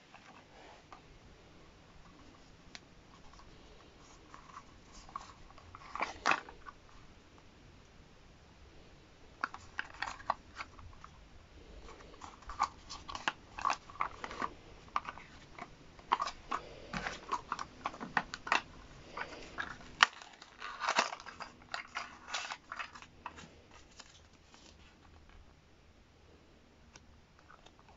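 Small cardboard blind box handled and torn open by hand: irregular crinkling, scraping and sharp clicks of the card, starting about five seconds in, densest through the middle and fading near the end.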